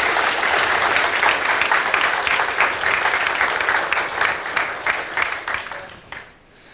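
Audience applauding, many hands clapping, dying away about six seconds in.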